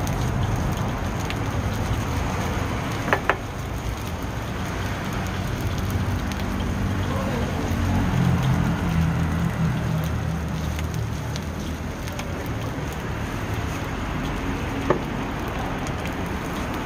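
Hot oil sizzling and crackling in a black iron wok as finely chopped aromatics fry in it, over a low steady rumble. Two quick metallic clinks come about three seconds in and one more near the end.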